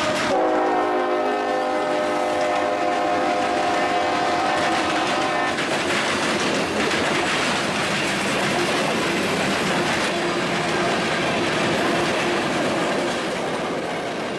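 Norfolk Southern diesel freight locomotive sounding its horn as it passes close by: a steady multi-note chord that drops slightly in pitch just after it starts and cuts off about five and a half seconds in. Then the loud rumble and clickety-clack of loaded hopper cars rolling past on jointed track, going on steadily.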